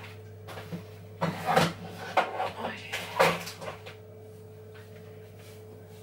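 Kitchen cupboard being opened and things knocked and clattered inside it, a burst of several knocks over about two and a half seconds, over a steady low hum.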